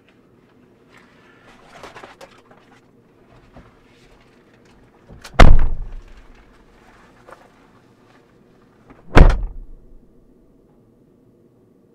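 Two car doors slammed shut, heard from inside the car's cabin: two heavy thuds about four seconds apart, with quieter shuffling and rustling before them.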